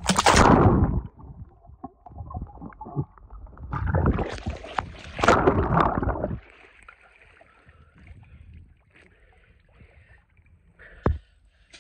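Splash as a phone plunges under the water, then muffled underwater swishing and sloshing picked up by the submerged phone's microphone, loudest about four to six seconds in and much quieter after.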